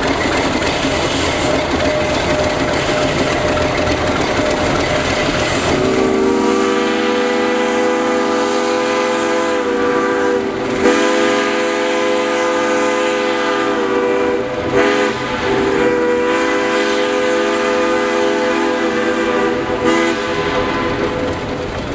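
Narrow-gauge 2-6-2 steam locomotive's chime whistle blowing three long blasts, starting about six seconds in and stopping a little before the end. Before it, the steady noise of the train running.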